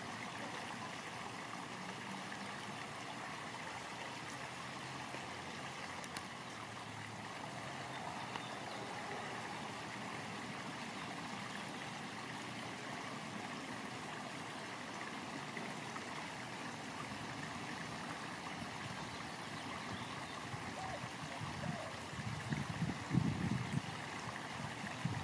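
Steady rushing of flowing water, as of a nearby stream, with a few low rumbles near the end.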